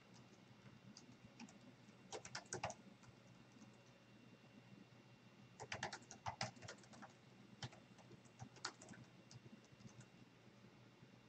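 Faint typing on a computer keyboard: a short run of keystrokes about two seconds in, then a longer, irregular run of key clicks from about five and a half to nine seconds.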